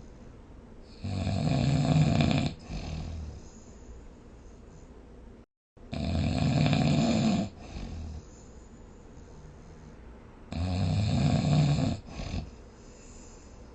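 A sleeping person snoring: three loud, rasping snores about four to five seconds apart, each lasting about a second and a half and followed by a softer breath.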